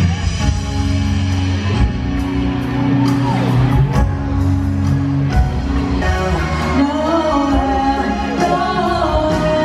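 Music with singing: sustained low notes underneath, with a sung melody coming in more clearly in the second half.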